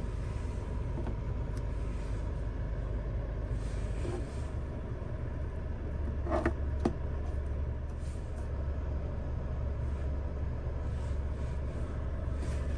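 Suzuki Jimny JB64's small three-cylinder turbo engine running steadily as the vehicle drives, a low rumble whose pitch steps up about four seconds in, with a couple of short knocks a little after the middle.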